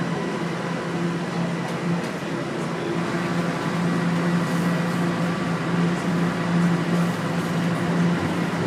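Steady hum and noise inside a Toronto Rocket subway car, with no distinct sudden sounds.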